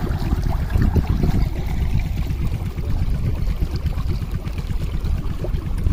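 Irrigation water gushing and splashing through a gap in an earthen channel bank as it flows into a field, a steady rushing sound.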